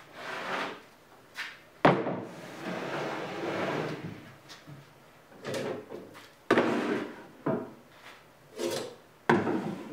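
A plywood panel being handled on a plywood workbench: sharp wooden knocks as it is set down, the loudest about two seconds in, others past the middle and near the end, with scraping and rubbing of wood sliding on wood between them.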